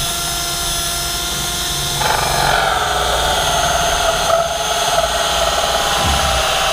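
Power drill with a hole saw spinning and cutting a large hole through a fiberglass boat deck. About two seconds in the saw bites and the sound gets louder and rougher, the motor's whine dropping slightly under the load.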